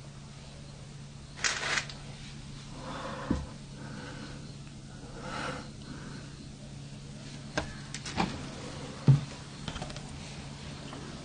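Handling noise of someone moving through an empty house past a wooden door: a brief rustle about one and a half seconds in, then scattered light clicks and knocks, the sharpest clustered near the end, over a steady low hum.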